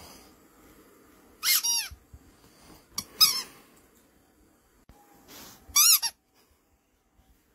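Rubber squeaky toy squeaked as a ferret bites and carries it: short high squeaks in three brief clusters about two seconds apart.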